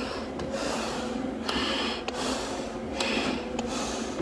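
Breathing hard and rhythmically through a firefighter's SCBA face mask, a hissing rush of air about once a second.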